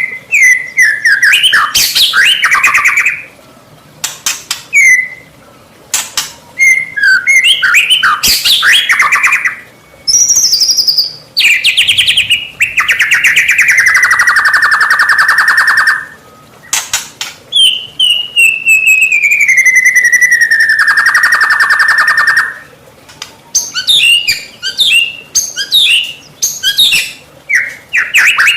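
White-rumped shama (murai batu) singing a loud, varied song of quick chirping and whistled phrases. Twice in the middle it gives a long rattling note that slides down in pitch and then holds. This is the full 'gacor' song used as a lure to provoke other shamas into answering.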